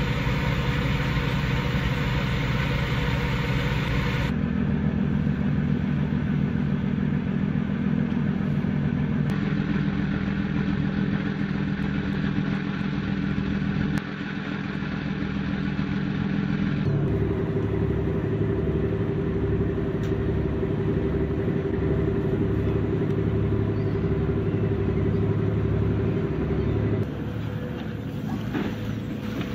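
Fishing boat's engine running steadily at sea, with a hiss of water over it. The engine note changes abruptly several times, and for about ten seconds a low pulse beats roughly once a second.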